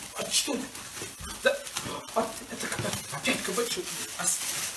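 Plastic bag and wrapper rustling and crinkling, with irregular small clicks and scrabbling as a pet roots in a shopping bag.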